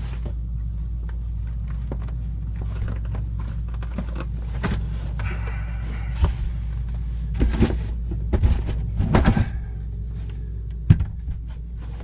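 A steady low hum underneath, with a run of knocks and clatter from about six to nine seconds in and one sharp knock near the end, as panels and tools are handled inside a camper's storage compartment.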